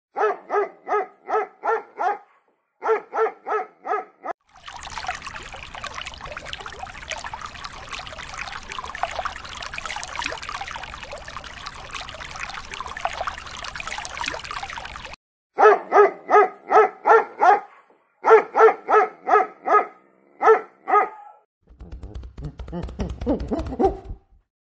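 A dog barking in quick, evenly spaced runs of short yaps, about four a second. A long stretch of steady hissing noise breaks up the barking in the middle.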